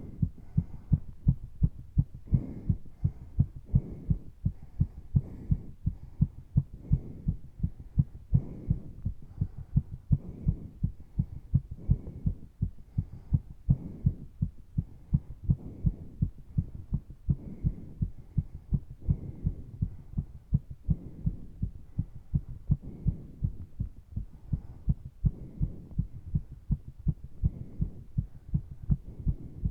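Human heart pounding during exercise, a fast, even run of low thumps, its rate raised by exertion. Heavy breathing is heard alongside it.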